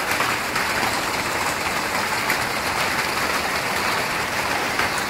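Steady rushing and splashing of water in a fish pond.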